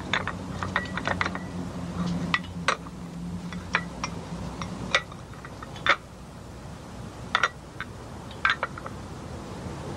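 Ceramic cups and saucers clinking against one another as they are stacked into a pile: sharp, irregular clinks with a short ring, several close together at the start, then one or two every second or so.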